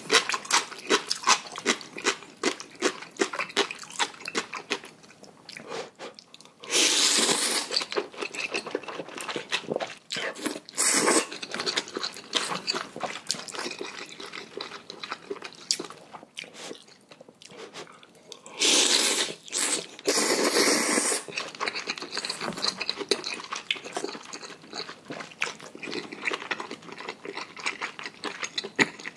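Close-up eating of noodles: wet chewing with many quick mouth clicks, broken by loud slurps of noodles about seven seconds in, around eleven seconds, and a longer one near twenty seconds.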